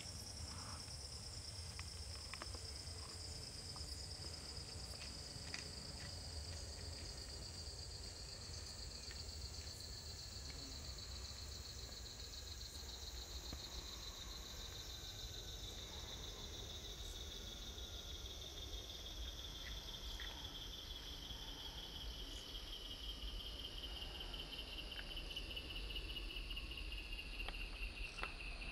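Continuous high-pitched insect trill, its pitch sinking slowly the whole time, over a low rumble, with a few faint soft clicks.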